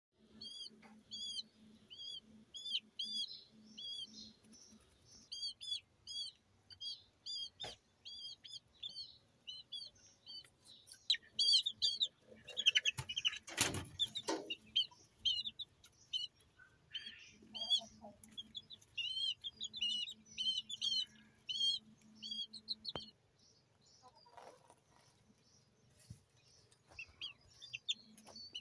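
Young Silkie Serama bantam chickens peeping: many short, high chirps in quick runs, with a pause in the calling after about 23 seconds. There is one brief louder noise about halfway through.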